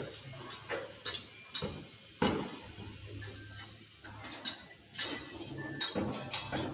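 Irregular metallic clinks and knocks, a dozen or so at uneven spacing, some with a short high ring.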